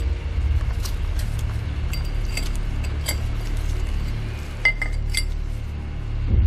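Light metallic clinks and taps as small metal parts are handled on a sheet-metal tray, the sharpest about five seconds in, over a steady low hum.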